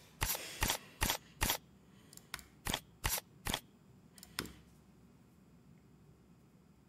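Computer mouse clicking: about ten quick, sharp clicks over the first four and a half seconds, then quiet.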